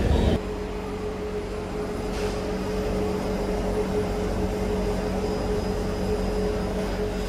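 A stationary C151 metro train standing at the platform with its doors open: a steady hum from its air-conditioning and auxiliary equipment, with one constant mid-pitched tone. It is louder for the first half second as the doors finish sliding open.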